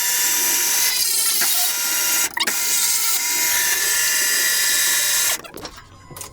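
An electric motor-driven tool running steadily for about five seconds, with a short break just after two seconds in, then stopping.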